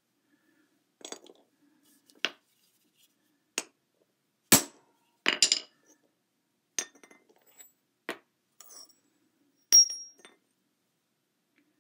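Metal alternator parts clinking and knocking as they are handled and set down on a hard floor. About ten separate sharp metal clinks come at uneven intervals; the loudest is about four and a half seconds in, and one near the end has a brief high ring.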